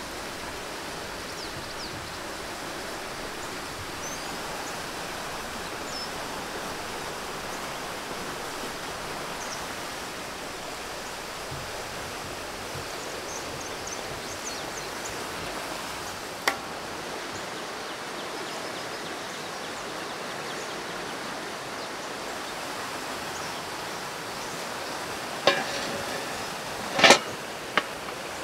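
Steady outdoor rushing noise with a few faint high chirps. Near the end come several sharp knocks, the loudest about a second before the end.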